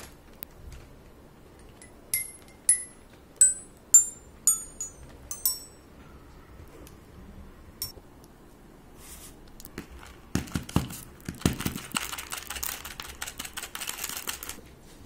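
Wooden mallets of a hand-built mechanical xylophone striking its metal bars: about seven ringing notes one after another, roughly half a second apart. Later, a spell of clattering as a handful of small plastic pegs spills onto a wooden table.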